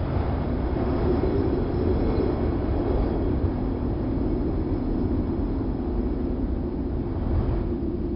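Wind sound effect: steady, low rushing wind.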